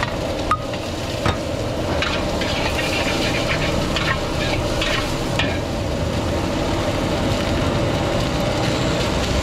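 Egg fried rice stir-frying in a wok over a gas burner: steady sizzling with the burner running underneath, and a metal ladle scraping and knocking against the wok several times.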